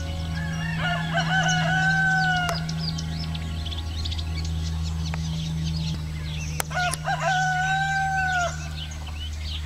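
Rooster crowing twice, about six seconds apart, each crow ending on a long held note, with small birds chirping and a steady low hum.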